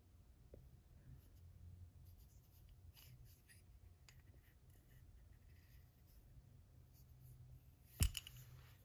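Faint handling of a wooden AK buttstock turned in the hand: light rubs and ticks, then one sharp knock about eight seconds in as the stock is flipped over.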